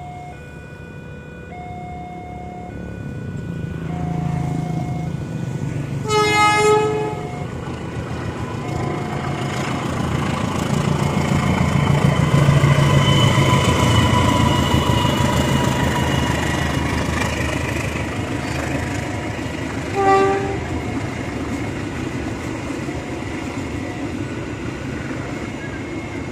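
A diesel locomotive hauling a parcel train passes straight through the station without stopping. Its engine and wheels build to a loud rumble that peaks about halfway and then fades, with a long horn blast about six seconds in and a shorter one about twenty seconds in. A repeating two-note electronic chime sounds throughout.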